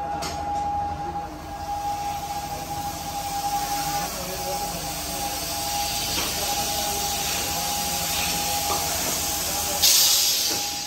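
Plastic-processing machinery running with a steady whine and hum. Near the end comes a brief loud rustling scrape as a plastic scoop digs into a tub of ground plastic flakes.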